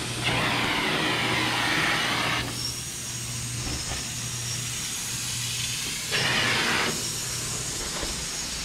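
Carpet-cleaning extraction vacuum drawing air through a hose and hand upholstery tool, a steady rush over a low hum. It gets louder and hissier twice, for about two seconds at the start and again briefly near the end, as the tool works over the fabric.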